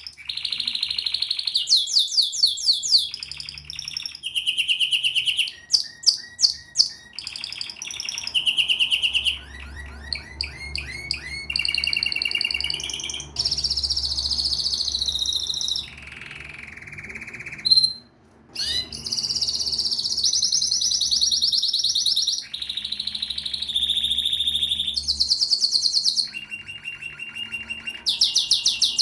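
Domestic canary singing a long, continuous song of rapid trills and rolls, phrase after phrase, each a quick series of repeated notes that changes pitch every second or two, with one brief pause about halfway through.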